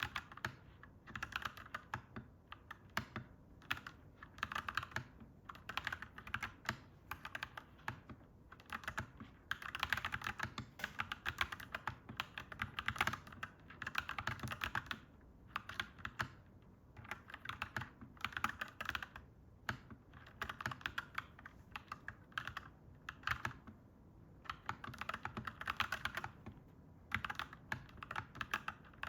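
Clacky mechanical keyboard being typed on: fast runs of key clacks in bursts of a second or two, broken by short pauses.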